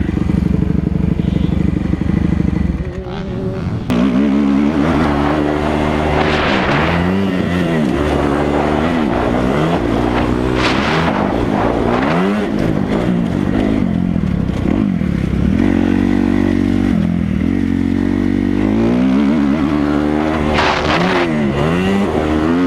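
Kawasaki KX250F four-stroke single-cylinder dirt bike being ridden, its engine revving up and dropping back again and again as the throttle is opened and closed, with a short lull about three seconds in.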